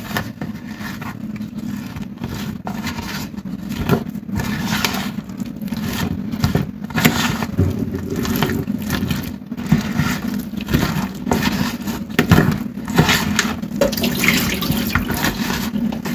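Water added to a bowl of pakora batter and the stiff batter mixed, with irregular wet squelching and scraping strokes.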